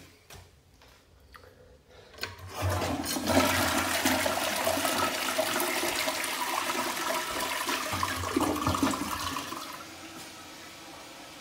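Toto gravity-flush tank toilet flushing. A loud rush of water starts about two seconds in and lasts about seven seconds, then drops to a quieter steady hiss as the toilet refills.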